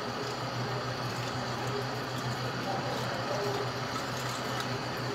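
Tap water running in a steady stream into a metal mesh strainer of wet dried petals being rinsed and stirred by hand, with a steady low hum underneath.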